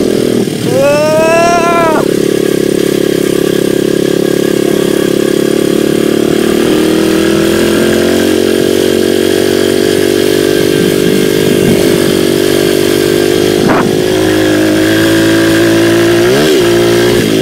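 Small dirt bike engine running at a steady speed while being ridden slowly across a grass field, with a slight rise in pitch near the end. A short high rising sound comes about a second in.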